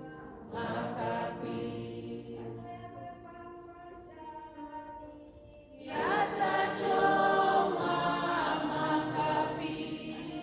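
Church choir or congregation singing a hymn, with many voices holding long notes. The singing swells louder about six seconds in.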